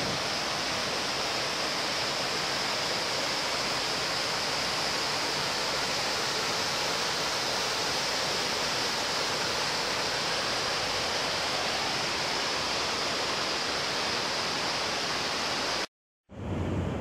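Steady rush of white water from a waterfall over rocks. Near the end it cuts out briefly, then returns deeper from another cascade in a narrow gorge.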